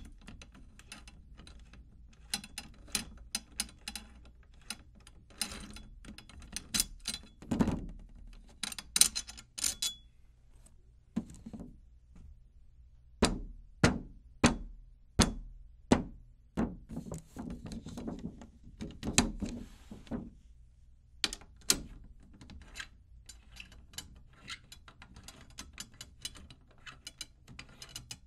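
Chrome drum tension rods clicking and rattling against the metal hoop and lugs of a 10-inch tom as they are dropped in and threaded by hand, in a quick irregular run of sharp ticks. Every so often there is a dull thump from the drum.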